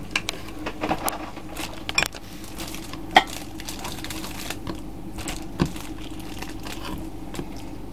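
Knife cutting raw chicken breasts into chunks on a chopping board: scattered, irregular clicks and taps of the blade on the board, with some crinkling of plastic.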